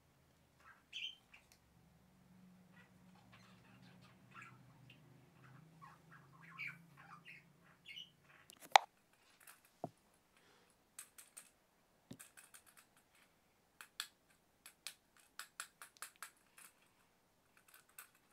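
Small plastic toy packaging being handled and opened by hand: squeaky scrapes and rustles, one sharp click about nine seconds in, then a run of light plastic clicks and taps.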